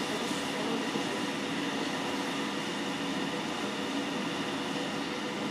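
SNCF BB 27300 electric locomotive standing powered up with its pantograph raised against the overhead wire: a steady hum with a few steady higher tones from its running equipment, unchanging throughout.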